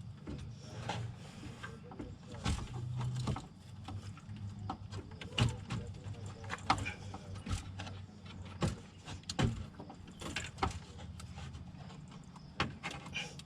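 Irregular clicks, knocks and rattles of plastic and metal parts being handled and pried on a car's radiator, fan shroud and A/C condenser assembly, over a low steady hum.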